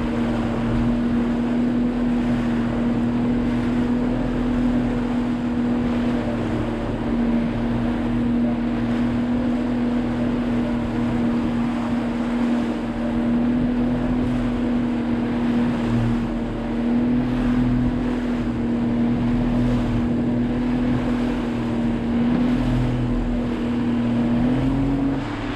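Motorboat engine running steadily at cruising speed, its note holding even and stepping up slightly just before the end, with wind buffeting the microphone and water rushing past the hull.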